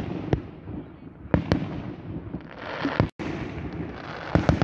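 Aerial fireworks bursting overhead: a string of sharp bangs, some in quick pairs, with crackling between them. The sound drops out for a moment about three seconds in.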